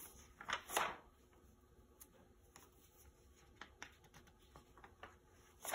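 Pages of an old paper magazine being turned by hand: two quick swishes about half a second in, a few faint rustles, and another swish at the end.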